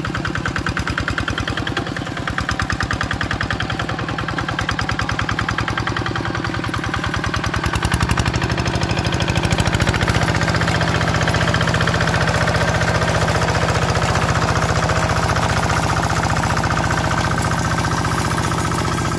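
Kubota RD 65 single-cylinder diesel engine of a two-wheel hand tractor running under load as its cage wheels work through flooded paddy mud, with a rapid, even beat. It gets louder about eight seconds in.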